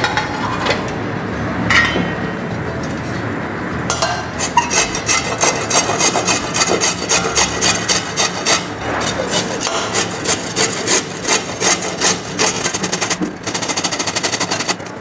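Raw carrot being grated on a round stainless-steel grater plate: rasping, scraping strokes. From about four seconds in they fall into a regular rhythm of roughly two strokes a second, then turn into rapid short strokes near the end.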